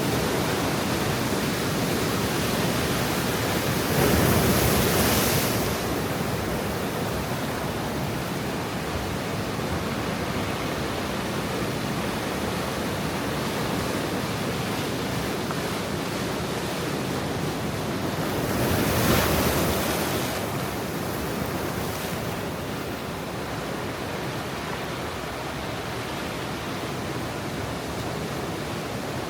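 Ocean surf at high tide: a steady wash of water, with two louder waves breaking, one about four seconds in and another about two-thirds of the way through.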